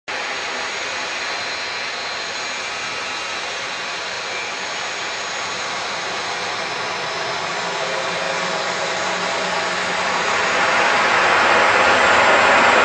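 Airbus A330-200 jet engines running, a steady roar with a faint whine that grows louder over the last few seconds.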